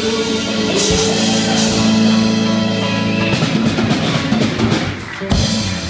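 Live rock band playing the closing bars of a song: guitar and bass hold a chord for about three seconds over a drum kit with cymbal crashes, then the playing loosens and eases off, with another crash near the end.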